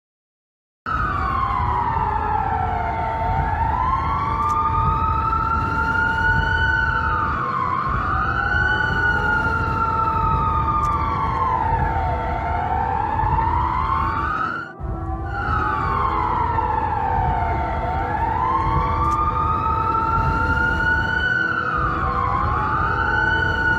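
Emergency alert siren wailing, its pitch sliding slowly down and up over a few seconds at a time, with a steady tone held beneath it. It starts abruptly about a second in, breaks off briefly about 15 seconds in, and then the same wail sequence repeats.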